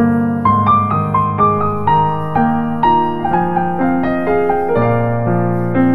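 Background piano music: a melody of struck notes, about two a second.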